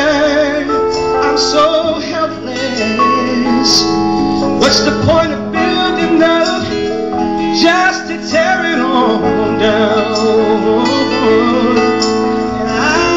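A man singing a pop ballad live through a microphone, accompanied by acoustic guitar and keyboard.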